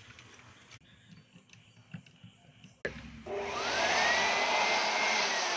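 A few light clicks, then a sharp click as a handheld electric blower is switched on about three seconds in; its motor spins up with a rising whine and runs with a loud rush of air, blowing toner dust out of a laser printer toner cartridge.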